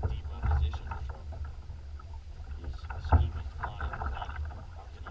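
Choppy lake waves slapping and splashing against a kayak's hull over a constant low wind rumble on the microphone. The slaps come irregularly, the loudest about three seconds in.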